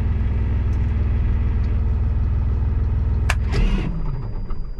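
Tractor engine running steadily, then a sharp click a little over three seconds in, after which the engine dies, its pitch sliding down as it runs down: the engine cut by the remote control's emergency stop.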